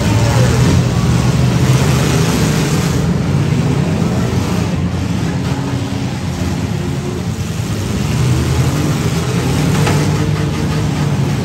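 Engines of several compact demolition-derby cars running and revving together as they drive around the arena and hit each other, a dense mix of engine noise that rises and falls.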